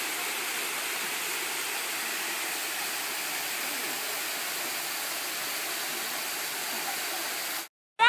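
Small waterfall pouring over rocks into a pool: a steady rush of falling water that cuts off suddenly near the end.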